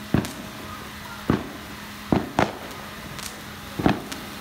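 JMAZ Firestorm F3 cold spark machines firing fountains of sparks: a steady hiss with a faint low hum, broken by sharp pops at uneven intervals, about one a second.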